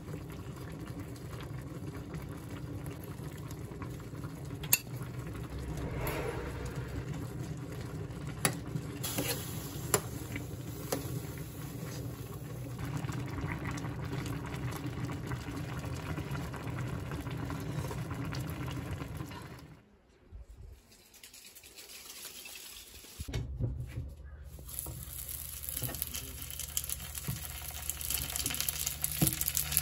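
A large stainless pot of Korean mixed fish stew boiling on the stove, with a ladle stirring and now and then clinking against the pot. After a short near-silent break about twenty seconds in, slices of rice cake sizzle in oil in a frying pan.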